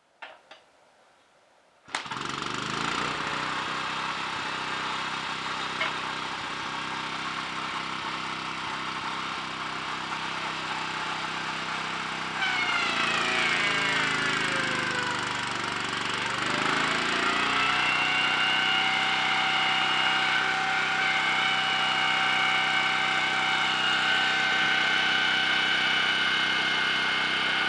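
Small single-cylinder petrol engine starting abruptly about two seconds in and running steadily, spinning a motorcycle's front wheel so that its brake shoes, coated in fine grinding paste, grind down a high spot in the out-of-round brake drum. About twelve seconds in it gets louder and a whine drops in pitch, then climbs back over a few seconds to a steady high whine.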